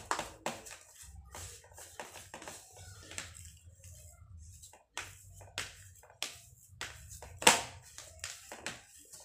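Hands kneading and squeezing moist pellet-based fish bait dough in a plastic tray: irregular wet squishes and taps of fingers and dough against the plastic, with one louder knock about seven and a half seconds in.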